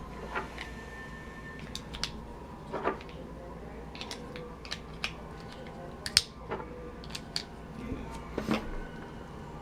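Irregular small clicks and knocks of hard plastic from handling a Black & Decker power screwdriver while fresh AA batteries are fitted into its back compartment.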